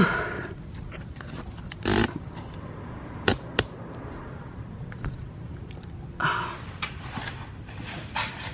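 Scattered clicks, knocks and short scrapes of hands and tools working on a car's plastic front bumper as it is taken apart, with no drill running.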